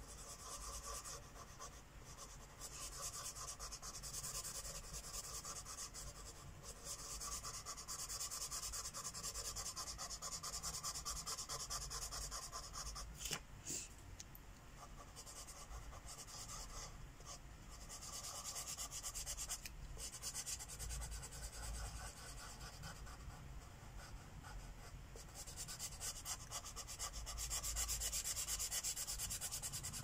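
Sharpie felt-tip permanent marker rubbing on a colouring-book page in quick back-and-forth strokes as an area is filled in, in stretches broken by short pauses.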